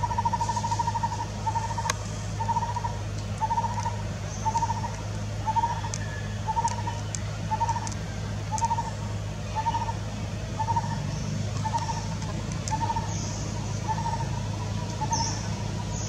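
A bird calls one short note over and over, about once a second, after an unbroken trill on the same pitch in the first second or so. A low steady hum runs underneath.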